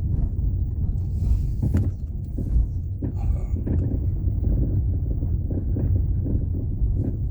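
Steady road and engine rumble inside a moving Chevrolet Onix, with a few short knocks from the steering, a fault the owner calls a steering defect; the dealer's technician calls it a common problem fixed by an adjustment.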